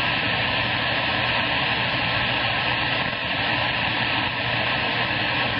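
CB radio receiver hiss: a steady rushing static from the radio's speaker as the channel is open between transmissions, with a faint low hum under it.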